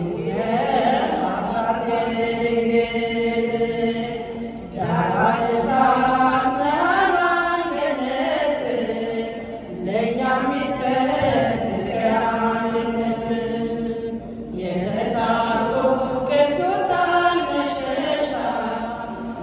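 Women's choir singing an Ethiopian Orthodox hymn to Mary in unison, chant-like, with a lead voice on a microphone. It moves in phrases of about five seconds, with a short breath between each.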